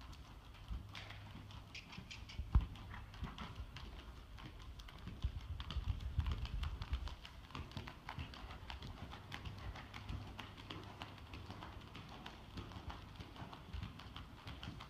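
Hoofbeats of a ridden dressage mare on the sand footing of an arena: an ongoing run of muffled thuds with sharper clicks over them, loudest about midway through.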